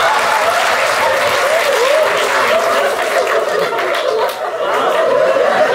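Theatre audience applauding and laughing together, a steady wash of clapping with many voices laughing over it.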